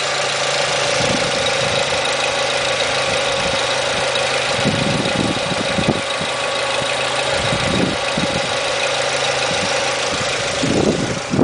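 Renault Mégane Scénic 16-valve four-cylinder petrol engine idling steadily with a constant whine, running like new on four fresh ignition coil packs: the misfire from a failed coil is cured.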